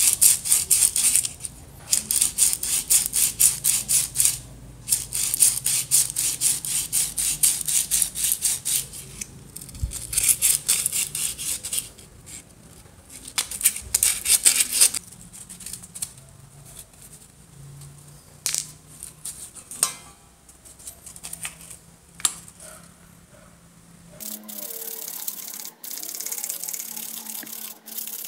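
Sandpaper rubbed back and forth by hand over a wooden tool handle, a quick run of short scratchy strokes that thins out to occasional strokes about halfway through. Near the end, a fainter scraping of a metal blade along the wood.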